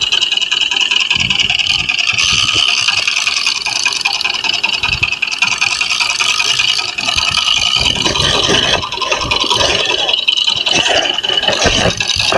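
Fishing boat's engine running steadily under way, with water and hull noise; irregular knocks and rattles come in during the second half.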